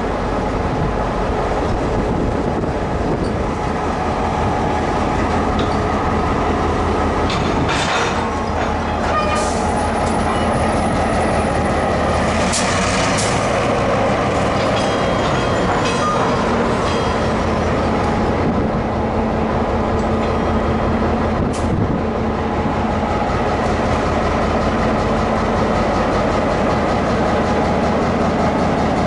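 Diesel locomotive of the EMD R150 class running steadily close by, a constant low drone, with rail cars moving slowly past. A few short, sharp metallic squeaks and clanks come around the middle.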